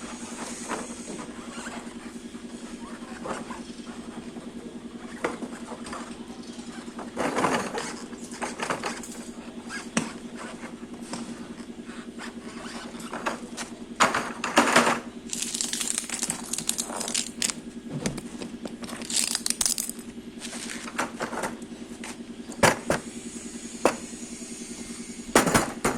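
A steady engine hum runs throughout, with irregular metallic clinks and knocks from work on a truck trailer wheel and a few short hissing bursts in the middle.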